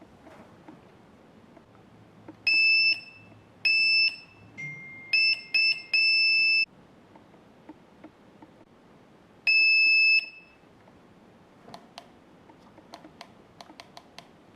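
Electronic beeper on an electric scooter's controls: a run of clear, high beeps, some about half a second long and some short, with a lower steady tone under part of the run. A single long beep follows about ten seconds in, and light clicks come near the end.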